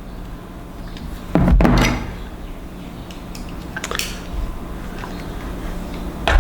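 Rummaging through a Klein precision screwdriver set: clicks and small clatters of bits and the case being handled, with a louder knock and rustle about a second and a half in and a sharp click near the end.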